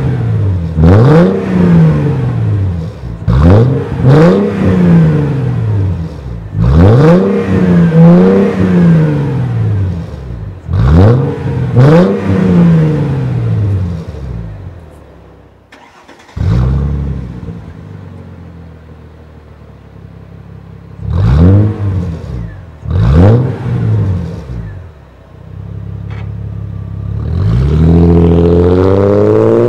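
Mercedes W220 S320's 3.2-litre V6 through a MEC Design 'Earthquake' aftermarket exhaust, revved at standstill in repeated quick throttle blips, each rising and falling in pitch. Around the middle it settles to a quieter idle with two more blips, and near the end it pulls away, the exhaust note rising steadily as the car accelerates.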